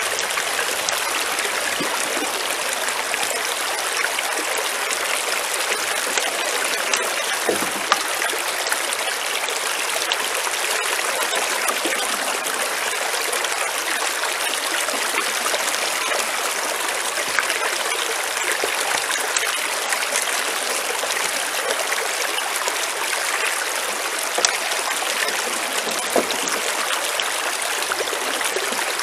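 Stream water flowing steadily through a small metal gold sluice box with riffles, a constant splashing rush, with now and then a faint click.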